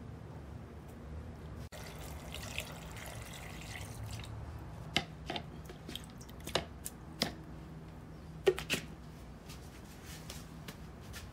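Wet soybean pulp being handled out of a damp cloth straining bag into a glass blender jar, with soft rustling and dripping and a scattering of sharp taps. The loudest tap comes about eight and a half seconds in.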